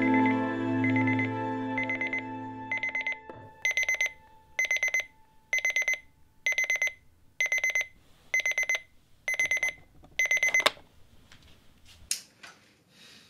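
Digital alarm clock beeping in bursts of rapid high beeps, about one burst a second. It grows out from under music that ends about three seconds in, then cuts off suddenly near the end.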